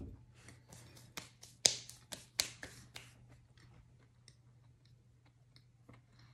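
A fork clicking and scraping on a ceramic plate, gathering cake crumbs: a run of quick sharp clicks in the first three seconds, two of them much louder, then only a few faint ticks.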